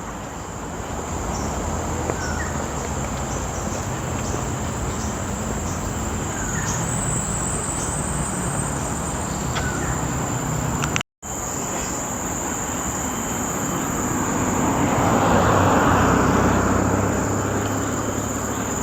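Insects shrilling in one steady high-pitched tone over a low background rumble. A broad rushing sound swells and fades about fifteen seconds in, and the sound cuts out briefly near the middle.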